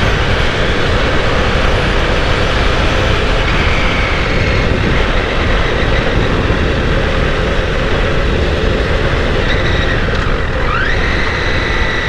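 Wind rush on the microphone of a 2008 Honda CBR1000RR inline-four sportbike at road speed, with the engine's steady note underneath. Near the end the engine note rises quickly, then holds.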